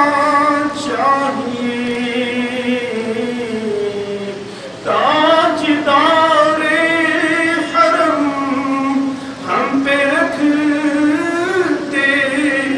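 A man chanting a religious poem or recitation in long, held melodic lines that glide up and down. The chant dips briefly about four and a half seconds in and pauses for a breath near the end.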